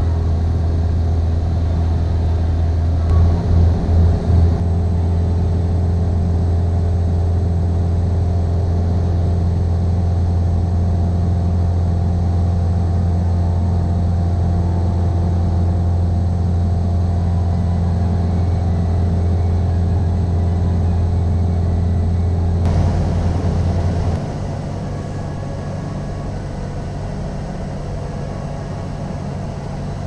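Cessna 172's piston engine and propeller droning steadily as heard inside the cabin in cruise, with a brief wavering of the drone about three seconds in. Past three-quarters of the way through, the engine note drops and turns quieter as power is reduced.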